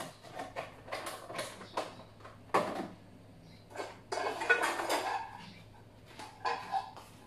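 Dishes and household things clinking and knocking as they are handled: a scatter of short knocks, busiest around the middle.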